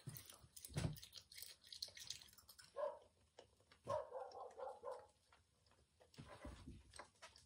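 Faint chewing and mouth noises of a child eating a chewy jelly sweet, with small clicks and a couple of short, soft hums about three and four seconds in.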